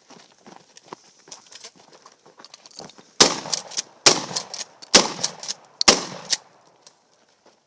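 Maverick 88 pump-action shotgun fired four times in quick succession, about a second apart, with the action worked between shots. Lighter clicks and knocks come before the shots.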